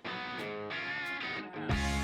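Background music led by guitar, with a heavier, louder bass part coming in near the end.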